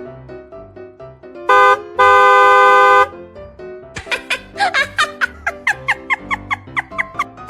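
Car horn honking over light background music: one short beep, then a long honk of about a second. After it comes a quick string of short, squeaky rising-and-falling chirps, about three or four a second.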